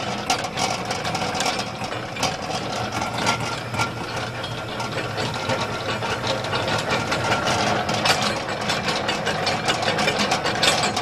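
Univex 20-quart belt-driven mixer running at a low speed setting: a steady motor hum with a quick, continuous clicking rattle.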